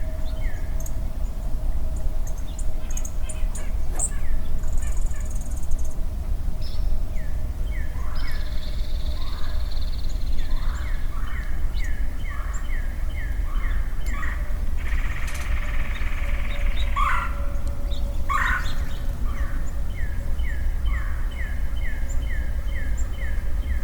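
Woodland animals calling over a low rumble: runs of short, high calls repeating about three times a second. Partway through come a harsh buzzy call and then two louder calls.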